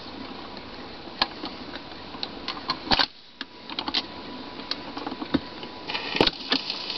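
Dual 1002E automatic record changer running its change cycle between shellac records: the mechanism clicks irregularly over a low hiss, with a sharp clack about three seconds in as the next record drops onto the platter. A little before the end the stylus sets down with a click and shellac surface crackle and hiss start.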